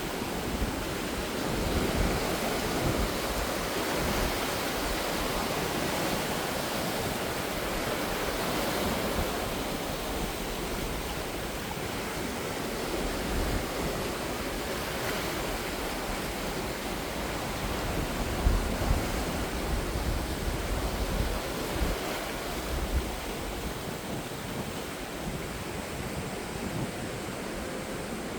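Sea waves washing onto the shore in a continuous surf, swelling and easing every few seconds, with low wind rumble on the microphone in the second half.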